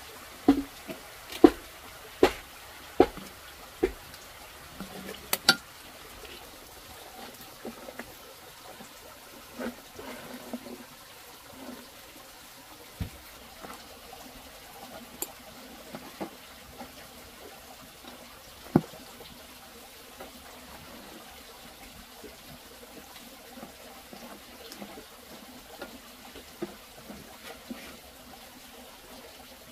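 Water trickling steadily. A run of sharp knocks, about one every three-quarters of a second, comes in the first few seconds, with scattered single clicks and knocks after.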